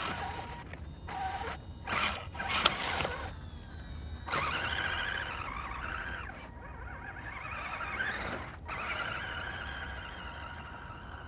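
Electric motor and gearbox of an Axial SCX10 1/10-scale RC Jeep crawler whining, the pitch rising and falling as the throttle changes, with a couple of sharp knocks about two to three seconds in.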